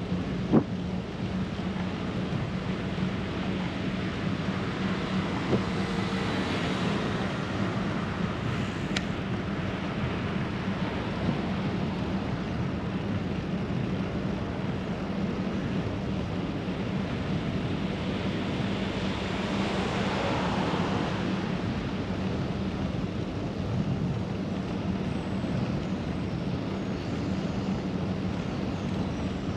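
City road traffic heard from a moving bicycle: a steady hum of traffic and wind, with a vehicle passing about 7 seconds in and another, louder, about 20 seconds in.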